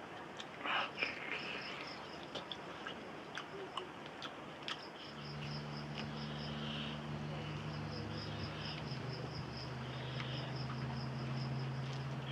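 Mouth clicks and smacking of someone eating, with crickets chirping in quick pulses in the background. A steady low hum starts about five seconds in.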